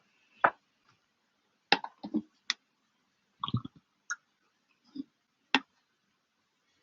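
Computer keyboard being typed on in sparse, uneven keystrokes: about ten sharp clicks with irregular gaps, a few coming in quick pairs.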